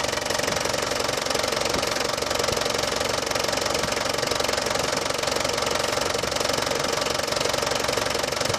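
Land Rover Defender 200Tdi 2.5-litre four-cylinder turbodiesel idling steadily, heard close up from above the engine.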